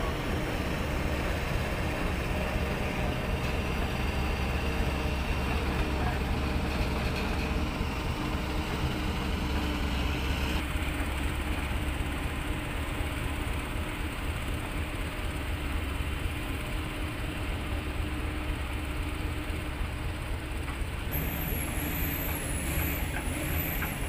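Heavy diesel machinery running with a steady low rumble: a loaded logging truck and a crawler excavator.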